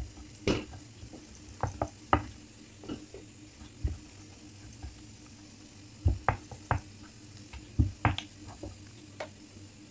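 Wooden rolling pin clacking and knocking against a round wooden rolling board while small puris are rolled out: about a dozen irregular knocks, some in quick clusters, over a faint steady hum.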